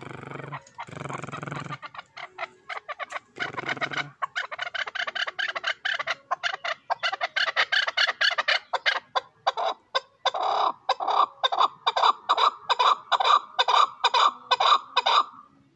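Young chukar partridge calling from its cage: a long run of short, rapid clucking notes that speeds up and grows louder, stopping just before the end. Two short rustling noises come first.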